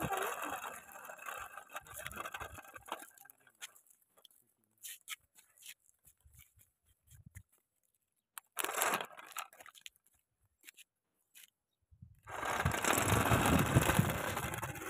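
Homemade cart's 12 V DC motors and small wheels running over gritty asphalt, dying away about three seconds in. A few light clicks follow as a crocodile clip is worked on the battery terminal, and about twelve seconds in the cart runs again with loud rolling noise.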